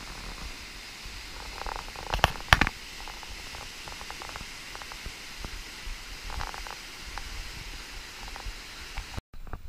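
Aare river rapids at high flow, about 230 cubic metres per second: a steady rushing of whitewater. Two brief louder bumps come a little over two seconds in.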